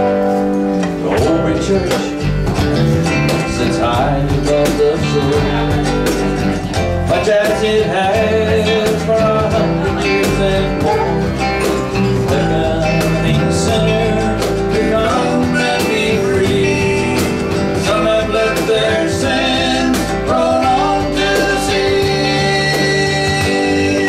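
A small live country band playing: acoustic and electric guitars over electric bass and a cajon, with a steady beat.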